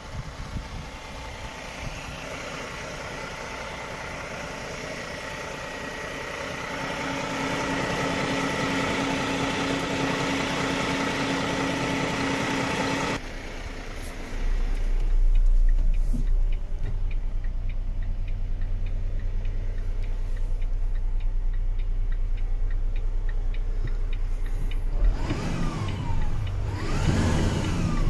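Volvo FL 280 truck's six-cylinder diesel engine running at idle, a steady drone heard from in front of the cab, then a deep rumble heard from inside the cab. Near the end the engine is revved up and back down a few times.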